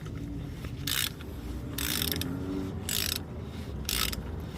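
Ratchet wrench clicking in short strokes, about one a second, tightening a cartridge oil filter housing cap.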